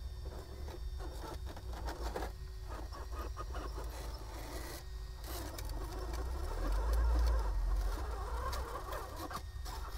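Electric RC rock crawler straining on sandstone: its brushless motor and steering servos whir in short spurts while the tyres scrabble and click against the rock. The truck is binding with a tyre trapped. A low rumble rises around seven seconds in.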